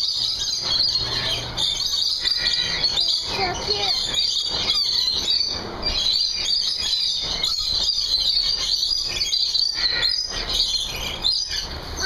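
A flock of lorikeets chattering and screeching, a constant mass of shrill overlapping chirps, with faint human voices beneath.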